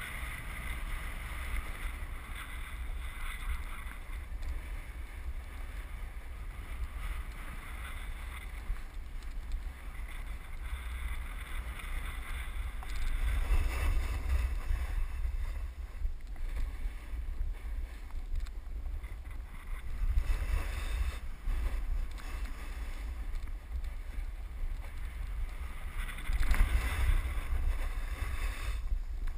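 Wind buffeting the microphone of a camera carried down a ski run, with a snowboard sliding and scraping on packed snow. The rush swells louder several times, about halfway through, two-thirds through and near the end.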